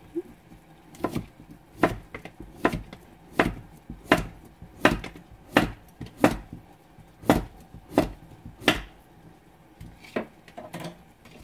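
Kitchen knife slicing a cucumber on a plastic cutting board: a steady run of about eleven sharp chops, roughly three every two seconds. The chopping stops about three seconds before the end, and a few lighter knocks follow.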